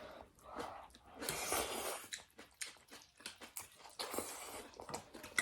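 Close-up mouth sounds of eating thukpa noodle soup: chewing with small clicks, and two longer noisy stretches about a second in and near the end.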